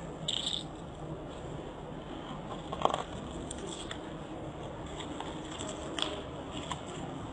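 Footsteps crunching on broken glass and debris: scattered crackles and small cracks over a steady background hiss, with one sharper crack about three seconds in.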